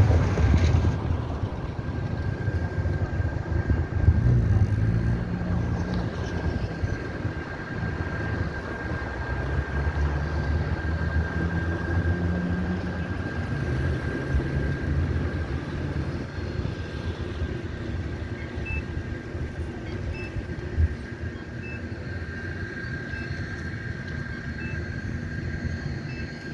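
Street traffic: cars driving past with a steady low engine and tyre rumble, loudest in the first few seconds. A faint thin steady tone runs underneath.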